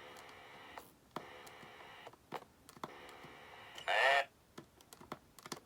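Glitching talking skeleton animatronic: a faint electronic hum from its speaker, broken by scattered clicks, with a short, loud, distorted burst of its voice about four seconds in, typical of the malfunctioning toy cutting in and out.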